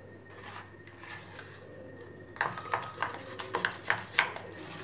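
A steel spoon stirring thick sweetened hung curd in a stainless steel bowl. For the first couple of seconds it is soft and low, then a quick run of clinks and scrapes of the spoon against the bowl follows, with a brief metallic ring.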